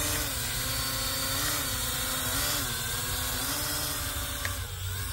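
Small quadcopter drone's motors and propellers buzzing steadily in flight, the pitch wavering slowly up and down.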